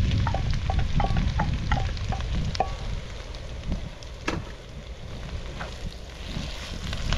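Egg and onion sizzling in a thin wok as they are stirred with a wooden spatula, with a run of light clinks of the spatula on the steel bowl and pan during the first three seconds and one sharp knock on the pan about four seconds in, over a steady low rumble.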